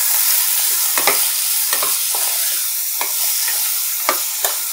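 Chopped spinach with spices sizzling in hot oil in a non-stick kadai as a steel spoon stirs it, scraping and knocking against the pan now and then while the spinach cooks down.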